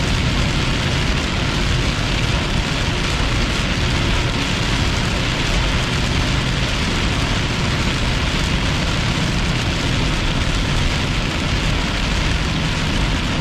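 Heavy downpour hitting a moving car's roof and windshield, heard from inside the cabin as a steady, even hiss over the low rumble of tyres on the wet highway.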